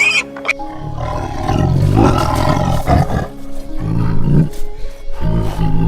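Deep, rough roars of a large animal, several in a row, over background music.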